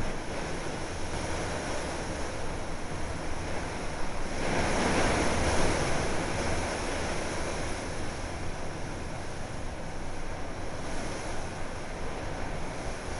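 Hurricane wind gusting, rushing through palm fronds and buffeting the microphone. A stronger gust swells about four and a half seconds in and eases off a couple of seconds later.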